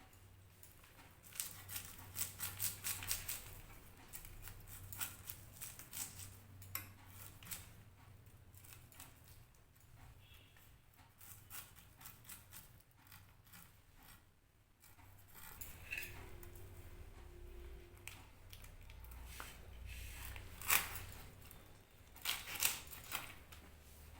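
A blade cutting and scraping a whole hilsa fish: a run of quick, irregular clicks and scrapes in clusters, over a low steady hum.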